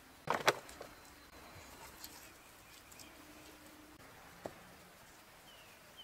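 Stones knocking against stone as stones are set onto a stone wall: a sharp cluster of knocks about half a second in, then a few lighter single knocks. A bird gives two short falling calls near the end.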